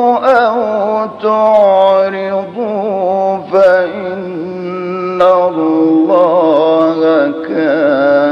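Melodic Quran recitation: a single voice chants phrase after phrase in long held notes, ornamented with wavering trills, with brief pauses for breath between phrases.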